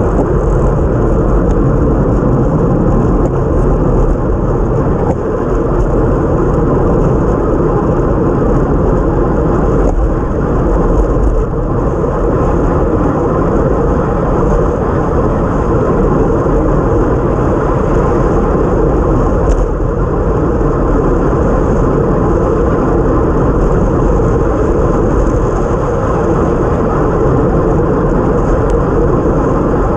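Steady rush of wind and road noise on a bike-mounted camera's microphone as a time trial bike rides at race speed on a wet road.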